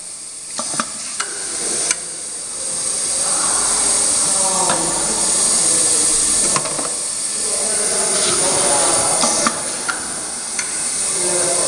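Semi-automatic flat-surface bottle labeling machine at work: a steady high hiss with irregular sharp clicks and knocks as bottles are pressed in and labels applied.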